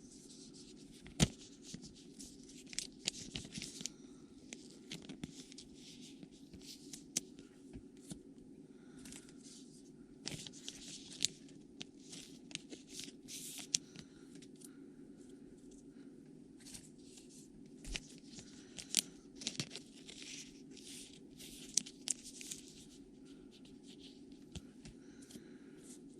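Trading card packs being opened by hand: wrappers tearing and crinkling, with the small clicks and scrapes of cards being handled, in irregular bursts. A steady low hum runs underneath.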